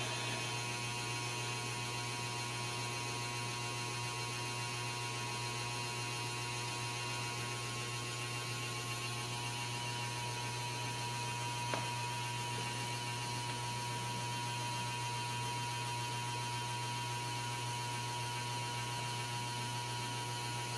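Steady electrical hum with several faint, steady whining tones above it, and a single faint click about twelve seconds in.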